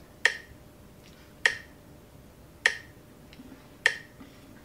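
Metronome clicking at 50 beats per minute: four sharp clicks about 1.2 seconds apart.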